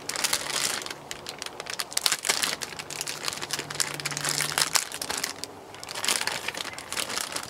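Thin plastic potato bag crinkling and crackling as it is slit open with a knife and handled, in many small irregular crackles.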